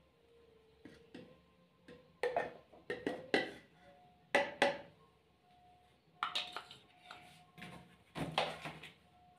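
A series of sharp knocks and clinks with short ringing: a plastic paint funnel cup and a metal paint tin being handled and set down on a concrete floor while paint is poured into a spray gun's container. The loudest knocks come a couple of seconds in and again near the end.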